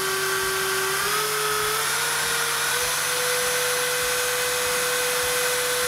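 Makita trimmer router's motor running free with no load, spinning a small end mill held in a collet adapter, a steady whine whose pitch steps up twice in the first couple of seconds and then holds steady.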